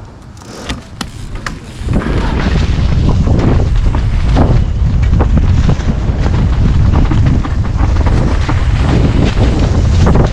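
Wind buffeting the microphone in a heavy, low rumble that sets in suddenly about two seconds in, after a few light clicks.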